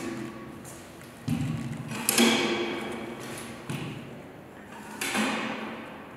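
A wheeled dry line marker pushed over a hard floor, its hopper and frame knocking: about five thumps, each ringing out for a second or so.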